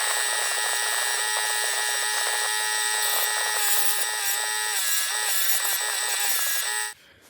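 Power tool spinning a wire wheel against the edges of a metal tin: a steady high whine with several tones, its pitch dipping briefly a few times. It cuts off abruptly near the end.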